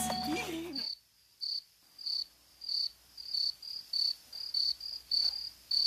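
Crickets chirping: short, high chirps repeating about two to three times a second, starting just after a tail of guitar music cuts off about a second in.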